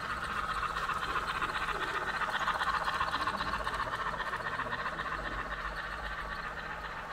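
HO scale model freight train rolling along the track, its wheels and cars making a rapid, rattling clatter that builds over the first few seconds and then slowly fades as the train moves away.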